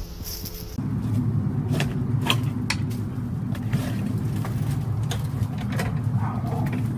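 An engine or motor running steadily with a low hum that starts suddenly about a second in, with scattered clicks and knocks over it.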